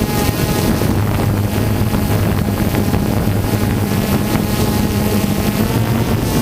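Steady, loud mechanical hum of the aircraft carrying the camera, a low drone with overtones that holds unchanged, with wind buffeting the microphone.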